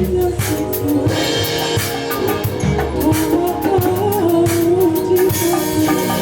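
A live band plays a song on a full drum kit, with cymbal hits, a steady bass and a wavering lead melody line over it.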